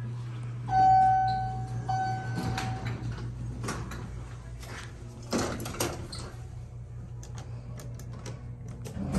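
Elevator arrival chime: two bell-like electronic dings about a second apart, the first the loudest, signalling that the car has arrived. It is followed by the car doors sliding open and a couple of knocks, over a steady low hum.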